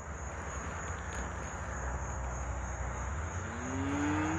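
A steady high insect drone over a hiss of wind and rustle. Near the end, a low drawn-out call rises in pitch and then holds for about a second.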